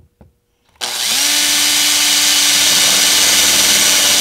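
Power drill spinning up about a second in, its motor whine rising and settling at a steady pitch, as a twist bit reground with a centre point bores into melamine-faced particleboard.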